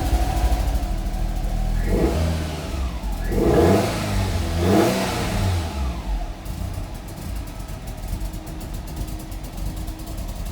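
1994 Fiat Coupé 16V Turbo's four-cylinder turbo engine idling roughly, blipped three times in quick succession a couple of seconds in, each rev rising and falling back, then settling to an uneven idle. The rough idle comes with an exhaust leak and the engine nearly cutting out.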